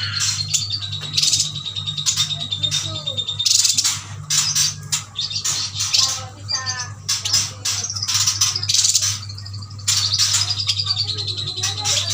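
Chestnut-crested yuhinas chirping and chattering rapidly, calls overlapping in quick bursts with short trills, over a steady low electrical hum.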